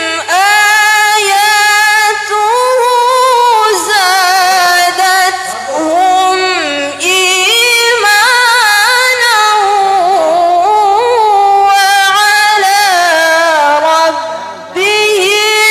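A young woman reciting the Quran in the melodic tilawah style into a handheld microphone: long held notes ornamented with pitch turns that rise and fall, broken by short pauses for breath.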